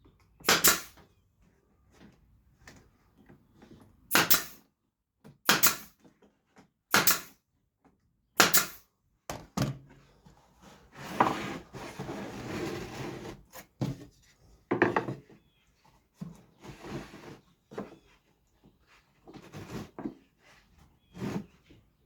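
A brad nailer firing brad nails into the wooden corners of a small birdhouse. There are about five sharp shots in the first nine seconds, then a few seconds of rubbing and softer knocks as the wood pieces are handled.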